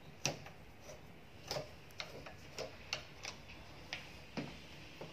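Light metallic clicks from a screwdriver turning out a screw on a steel security door's lock cylinder, about ten irregular clicks, roughly two a second.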